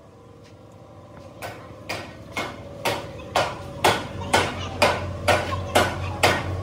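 Steady hammer blows on metal, about two strikes a second, each with a short ring, starting faint and growing louder.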